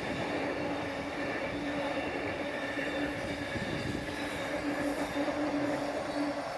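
Freight train hauled by a Class 88 electro-diesel locomotive passing, a steady rumble of wagons on the rails with a steady humming tone running through it.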